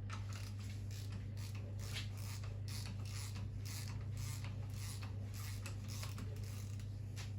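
Irregular scraping and rubbing of metal parts being handled and moved on a stripped engine block, over a steady low hum.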